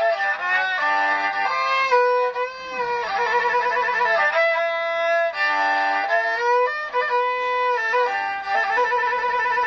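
Tro Khmer, the Khmer three-string spike fiddle, bowed solo. It plays a slow melody of held notes, sliding in pitch between them.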